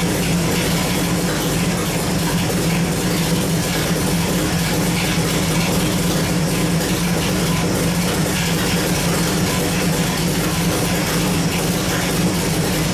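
Small-block Chevy 383 stroker V8 idling steadily on an engine dyno, with no revving.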